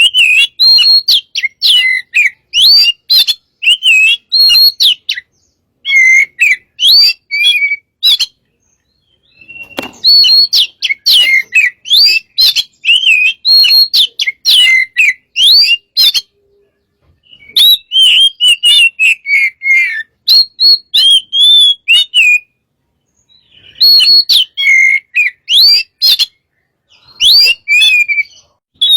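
Oriental magpie-robin (kacer) singing vigorously: a loud, varied song of rapid whistled notes and quick pitch slides, delivered in bursts of several seconds with short pauses between.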